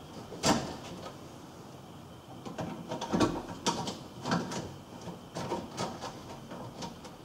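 Irregular clicks and light knocks of a screwdriver and copper conductors being handled at the terminals inside a consumer unit, as the line and neutral conductors of a ring final circuit are disconnected. The sharpest click comes about half a second in, with a quicker run of clicks a few seconds later.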